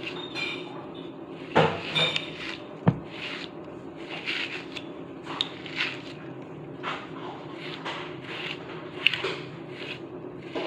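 A grooming brush raking through a Chow Chow's thick coat: repeated short scratchy strokes, roughly one or two a second. A few sharp knocks come around two to three seconds in.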